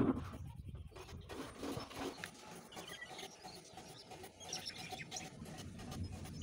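Graphite pencil scratching on paper in short irregular shading strokes, with a soft bump at the very start.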